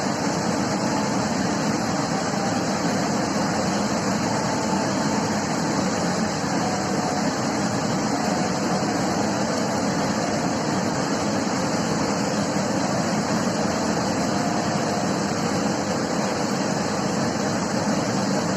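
River water rushing by in a steady, unbroken roar.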